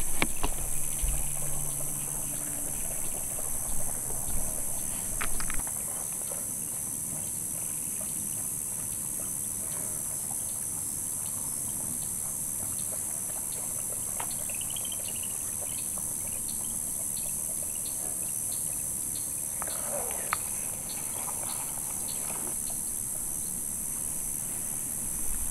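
Steady high-pitched drone of insects, over which a deer can be faintly heard wading and splashing through shallow pond water. There are a few knocks and rustles in the first few seconds.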